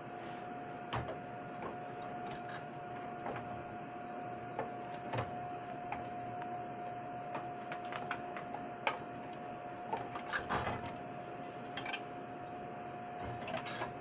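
Scattered light clicks and knocks of computer parts being handled, a few louder knocks around ten seconds in, over a steady high-pitched hum.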